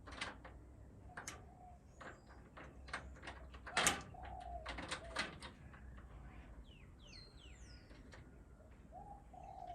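Scattered small clicks and taps of metal lock parts being handled. A bird coos a few times, and there is a brief run of high chirps about seven seconds in.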